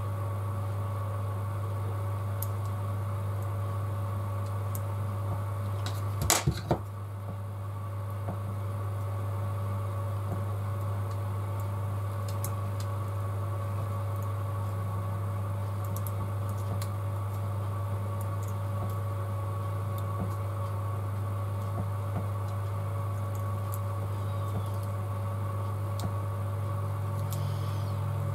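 A steady low hum, as of a fan or motor running, with a short clatter of small clicks about six seconds in.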